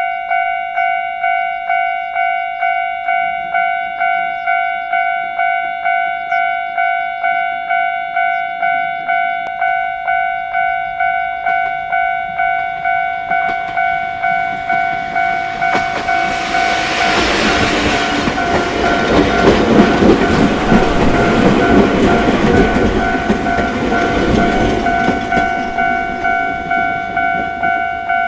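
Japanese level-crossing warning bell ringing steadily at an even pace, about one and a half dings a second. About halfway through, a Sangi Railway train comes up and passes over the crossing, its running noise swelling until it drowns the bell, then easing off near the end.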